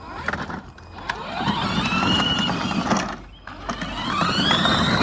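Small side-by-side UTV pulling away and accelerating twice: its whine rises in pitch, drops off briefly just past three seconds, then climbs again as it speeds up.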